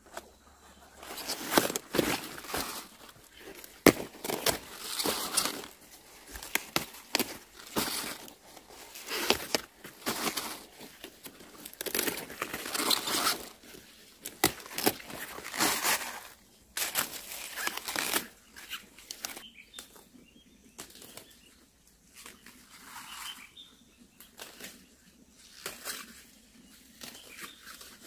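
Large mustard-green leaves being snapped off and handled: crisp rustling, tearing and snapping of leaves and stalks in quick bursts, thinning out to occasional faint rustles after about two-thirds of the way through.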